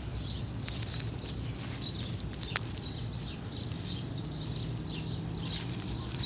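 Scattered light clicks and rustles of hands and a handheld phone moving over garden soil and plants, over a low steady outdoor rumble.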